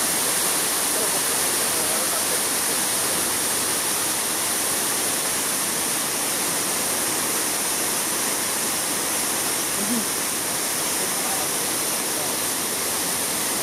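Steady rushing and splashing of water from arching fountain jets falling into a cascading stream, an even hiss with no pauses.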